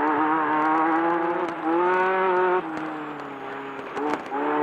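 Class 10 desert race buggy's engine running hard at speed, its pitch climbing a little about a second and a half in, then easing off lower and quieter off the throttle for over a second before picking back up near the end, with scattered sharp clicks over it.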